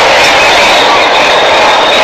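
A large street crowd of demonstrators making a loud, steady din of many voices blended together, with no single voice standing out.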